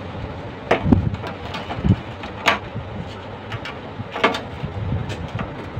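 Steel pliers clicking and knocking against a rusted, stuck nut and the steel stove frame as it is gripped and twisted: about five sharp clicks spread over a steady background noise.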